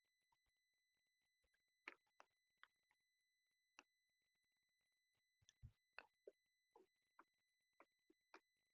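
Near silence: a faint steady high-pitched tone, with scattered faint clicks and taps that come more often in the second half.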